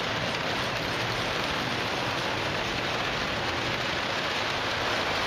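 Model trains running on three-rail tubular metal track, a steady rushing rattle of wheels and motors.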